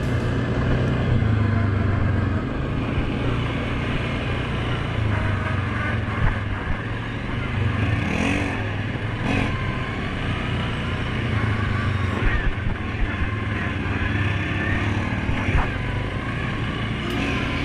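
2019 Suzuki King Quad 750 ATV's single-cylinder engine running under way on a dirt trail. The engine note rises and falls with the throttle.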